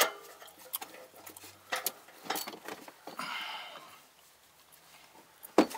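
Light scattered clicks, taps and scrapes of a gloved hand working up among parts under the truck, with a brief rubbing scrape about three seconds in and a sharp knock near the end.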